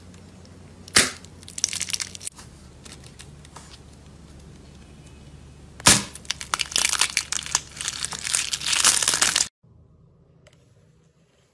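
A painted egg-shaped shell crushed in the hand. A sharp crack comes about a second in, followed by brief crackling. A second sharp crack comes about six seconds in, followed by a few seconds of dense crunching and crackling as the shell breaks apart, and the sound breaks off abruptly near the end.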